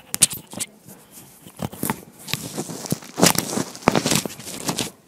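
Lavalier microphone handling noise: rustling, scraping and sharp clicks as the mic and its clip are fastened onto clothing, in an irregular run that is busiest a little past the middle.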